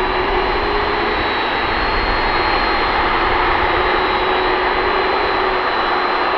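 A Boeing 747-400ER's four jet engines running steadily at low power as the airliner taxis, a rushing noise with a thin, steady high whine over it.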